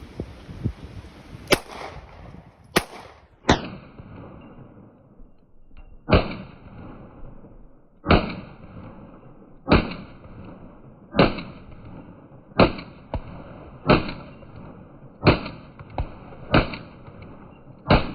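Sig Sauer P320 Compact 9mm pistol fired in a slow, steady string, one shot about every one and a half seconds, each with a short echo. A few thinner, sharper cracks come in the first few seconds and between the later shots.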